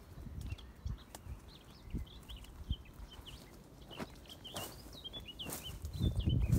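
Small birds chirping and singing in quick short phrases throughout, over low thumps and brief rustles of someone working at the tent close to the microphone. The thumps get louder near the end.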